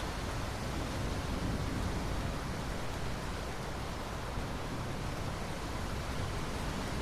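Steady rainfall, an even hiss with no thunder.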